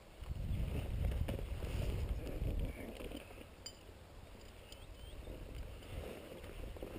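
Wind buffeting the microphone as a low rumble for the first two and a half seconds or so, then a quieter stretch of rustling as feet walk through dry grass.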